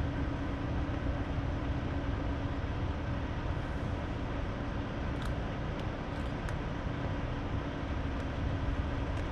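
Steady outdoor background rumble and hiss with a faint steady hum, and a few faint ticks in the second half.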